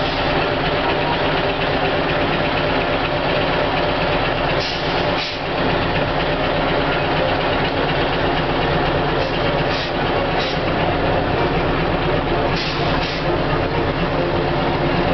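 Scania LBS 141's V8 diesel engine running steadily as the truck creeps forward, heard from inside the cab. The sound dips briefly a few times.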